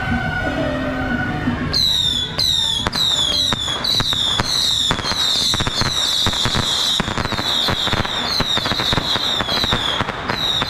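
A long string of firecrackers going off in dense rapid crackling bangs from about two seconds in, with short high whistles falling in pitch over and over on top. Before that, music with steady held tones plays briefly.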